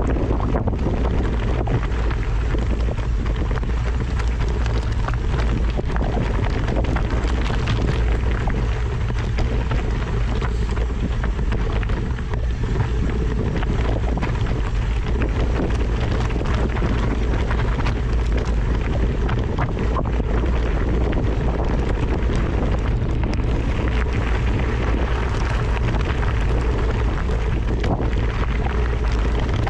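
Steady wind noise buffeting the microphone, a loud even rush with a heavy low rumble.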